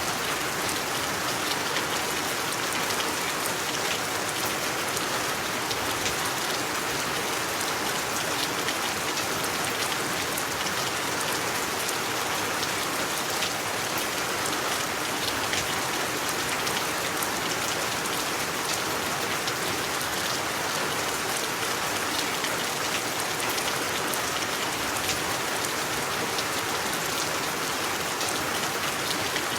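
Steady rain falling on a surface, a dense even hiss with many small drop patters.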